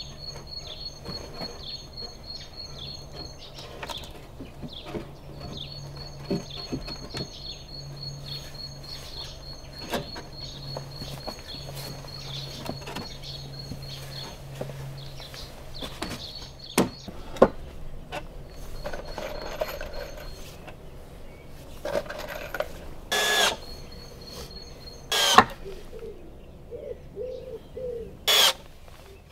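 Birds singing, with a repeated high trill that comes and goes, over scattered knocks of timber beams being handled and fitted. In the last third come a few short, loud bursts.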